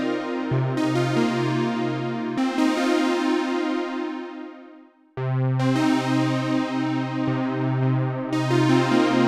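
Sequential Prophet 10 analog polysynth, recorded straight from its output, playing a factory preset: sustained chords over a bass that pulses about twice a second. About halfway the bass stops and the chord fades away, then a new chord and the pulsing bass come back in a little after five seconds in.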